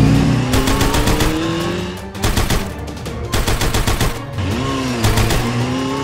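Rapid bursts of machine-gun-like rattling, with rising siren-like glides and one wail that rises and falls about halfway through.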